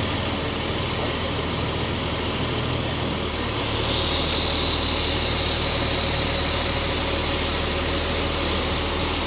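Fire truck's engine idling steadily. A steady high-pitched whine joins about four seconds in.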